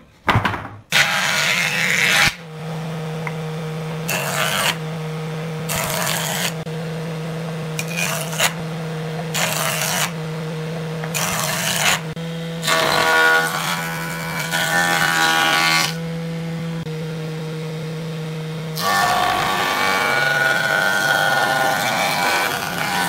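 Jointer running with a steady motor hum while pieces of wood are fed across its cutterhead. Each pass is a loud burst of planing noise lasting about a second or longer. There are around nine passes, and the longest is near the end.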